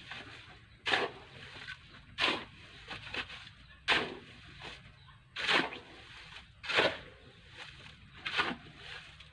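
A shovel blade scraping and digging into a pile of sand, in about six separate strokes spaced a second and a half apart.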